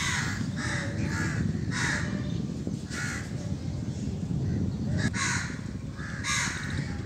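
Crows cawing again and again, short harsh calls coming every half second to a second, over a steady low rumble.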